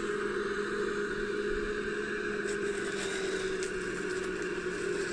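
Electric motors and gearboxes of a 3D-printed RC excavator whining steadily as the upper structure swings round, the pitch sagging slightly near the end, with a few faint ticks in the middle.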